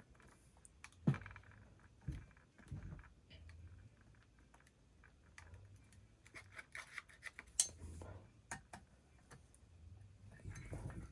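Faint, scattered clicks and light metallic taps of hand tools and small chainsaw parts being handled while the ignition module is adjusted against the flywheel. Two sharper knocks stand out, about a second in and near the middle.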